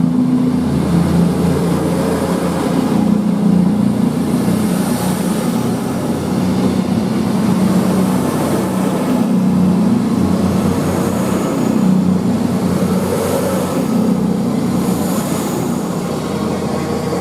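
A train running through the station: a loud, steady low drone with a wavering hum.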